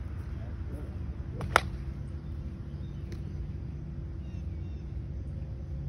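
A golf iron striking a ball off the grass: one sharp crack about a second and a half in, over a steady low background rumble.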